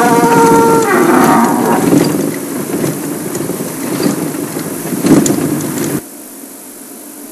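Lions growling and snarling over a buffalo kill. A loud, drawn-out rough call comes at the start, then quieter growls and a sharp loud outburst about five seconds in, before the sound drops away suddenly about a second later.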